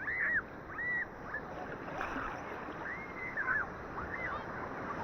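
Sea waves washing on a beach, a steady rushing wash, with many short high chirping or squealing calls over it, the loudest near the start.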